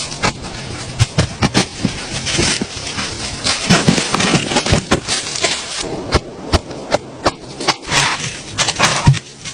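Irregular sharp knocks and snaps over rustling, as of branches and sticks being handled and broken while building a shelter.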